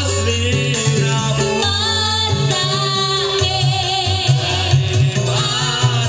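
A woman singing a wavering, vibrato-laden melody into a microphone over a live band, with a heavy bass line and rattling percussion, all played loud through a PA.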